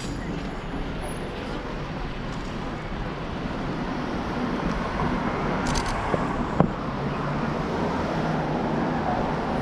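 Steady road traffic noise, cars passing, with a sharp click about two-thirds of the way through.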